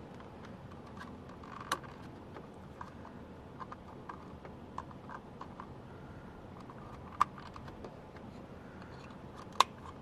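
Plastic wiring connectors being handled and plugged into the back of a dash switch panel: scattered small clicks and rustles, with a sharper click about seven seconds in and another near the end.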